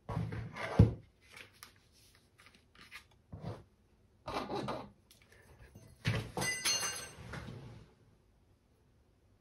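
Hand work at a jeweller's bench: a sharp knock just under a second in, scattered light taps and scrapes, and longer rough scrapes that fit a hand file shaping a carving-wax pendant, one of them with a brief ringing tone.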